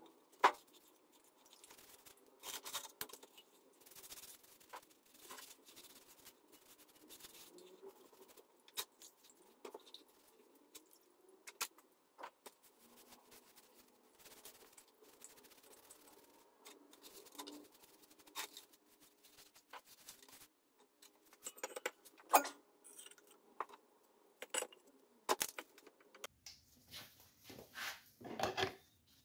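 Irregular light metallic clinks, taps and scrapes of small steel parts being handled and knocked together during dismantling of a formerly seized hoist spindle. There is a sharper knock about half a second in, another around two-thirds of the way through, and a quick run of clinks near the end.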